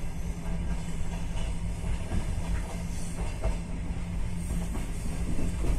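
Passenger train rolling slowly out of a station, heard from inside the coach: a steady low rumble of wheels on rails with a constant hum and a few faint rail clicks.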